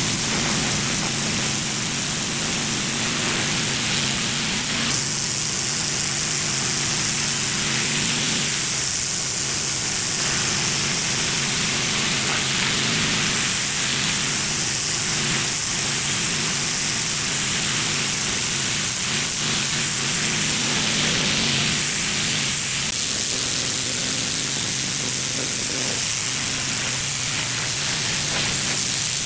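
Pressure washer spray hissing steadily as it blasts dirt off a concrete driveway, with the machine's engine running at a steady pitch underneath.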